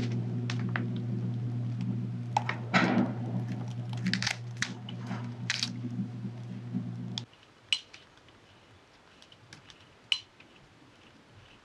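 Chocolate mousse squeezed from a piping bag onto cranberry sauce in a glass: soft squishes and small crinkles of the bag, with a few light clicks. A steady low hum runs under it and cuts off suddenly about seven seconds in, after which only faint squishes and clicks remain.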